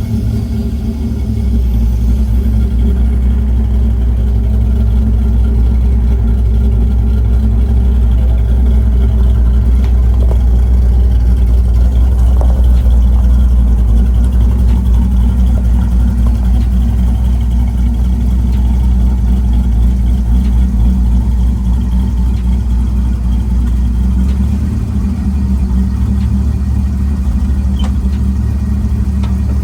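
LS V8 engine of a 1985 Chevrolet Caprice running at a steady idle, with a deep, even rumble. The lowest part of the rumble eases about twenty-four seconds in.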